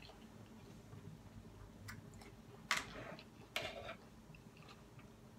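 Faint mouth sounds of someone chewing salad, with three short sharp clicks about two, two and three-quarter, and three and a half seconds in, the middle one loudest.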